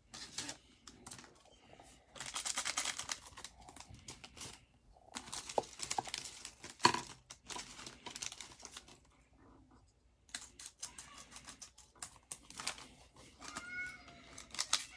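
Foil wrapper of a trading-card pack crinkling and rustling as gloved hands handle it, in irregular bursts with small clicks and taps.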